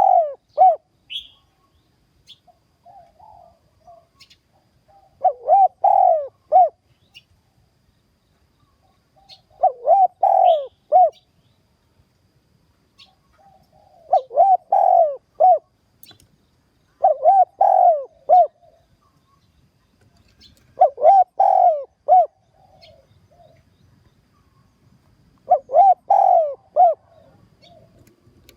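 Spotted dove cooing, a short phrase of several coos repeated about every four seconds: the lure call used to provoke wild doves toward a trap.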